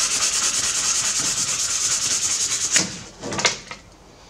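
Fine sandpaper rubbed rapidly back and forth by hand over a steel blade, a steady run of short scratchy strokes that stops a little under three seconds in, followed by a couple of separate strokes and a quieter end.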